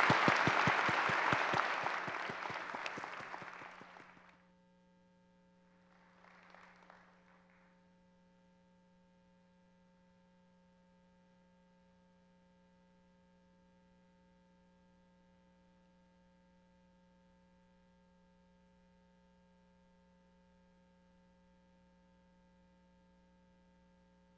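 Audience applauding, fading out about four seconds in, then near silence with only a faint steady electrical hum.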